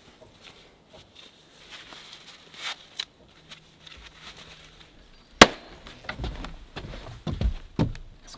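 Rustling and small clicks of head nets and work gloves being put on, then one sharp slap about five seconds in, followed by several heavy footsteps on forest ground and debris.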